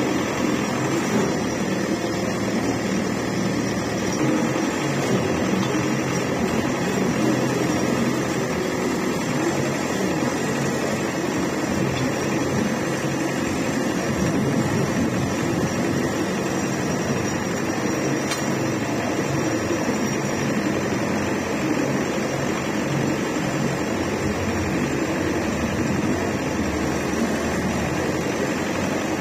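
Water well drilling rig running steadily: its engine-driven power unit and hydraulic system work at an even, unbroken level.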